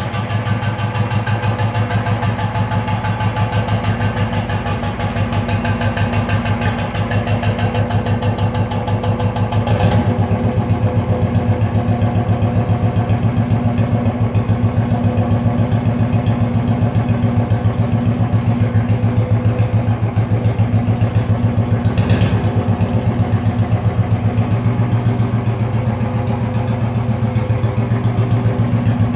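Royal Enfield Bullet 350's single-cylinder engine idling through its stock chrome silencer, a steady, even beat of exhaust pulses.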